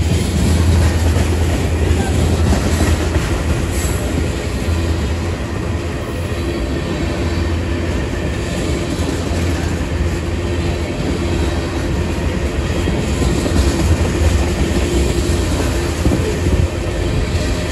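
Freight train of tank cars and covered hoppers rolling past close by: a steady, loud rumble of steel wheels on the rails.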